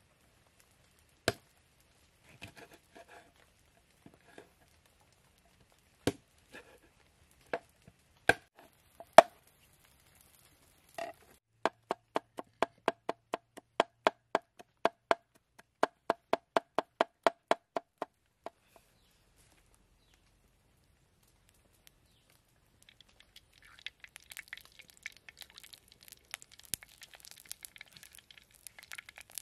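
Large knife chopping garlic on a wooden cutting board: a few scattered knocks, then a fast even run of chops, about four or five a second, for some six seconds. Near the end comes a crackling sizzle as the garlic fries in a hot earthen pan over a wood fire.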